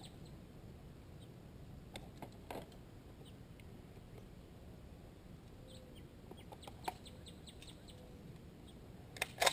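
Birds chirping and chickens clucking in the background, with a few faint knocks. Right at the end come two sharp cracks, the start of the Saiga-12 shotgun's rapid fire.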